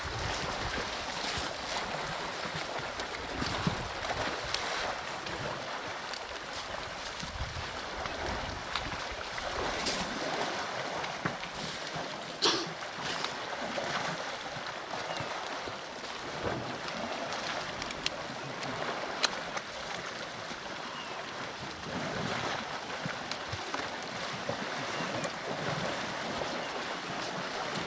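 Water sloshing and splashing as a herd of African elephants wades and rolls in a muddy dam, with a few sharper splashes now and then.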